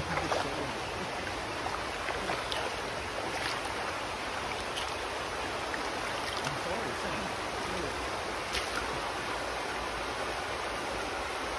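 Shallow river water flowing over rocks: a steady rushing babble, with a few faint clicks.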